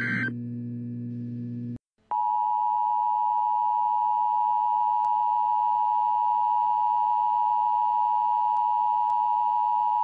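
Emergency Alert System attention signal: a steady two-tone alert (853 and 960 Hz) held for about eight seconds, starting about two seconds in after a moment of hum and a brief dropout.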